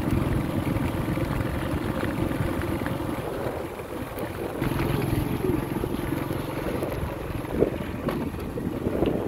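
Jet airliner engines running at a distance as a steady low rumble, with wind buffeting the microphone. A brief thump comes about three-quarters of the way through.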